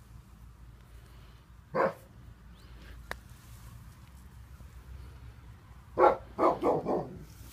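A dog barking: a single bark about two seconds in, then a quick run of about four barks near the end.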